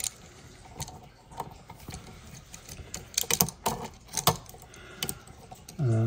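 Irregular small clicks and taps of stiff copper electrical wires and plastic push-in wire connectors being handled and pressed into an outlet box, busiest around the middle.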